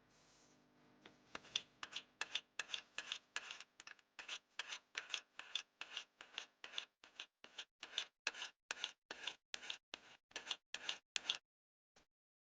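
Rapid, rhythmic scraping strokes by hand, about three a second, as of a hand tool rubbed back and forth over a hard surface; they start about a second in and stop shortly before the end.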